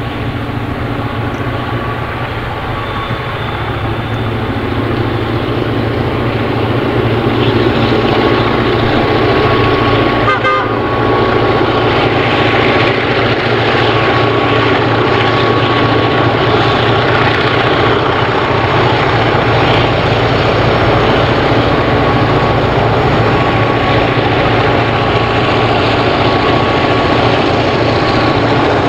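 Roots-blown EMD diesel-electric locomotives hauling a freight train through the yard, their engines running steadily, louder over the first several seconds as the train approaches and then holding. A thin high tone comes and goes over the engine noise from about ten seconds in.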